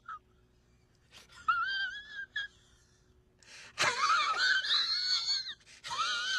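A man's high-pitched, quivering whining wail in several bouts. The first is short, about a second and a half in. A longer, louder one starts near four seconds in, and another follows near the end.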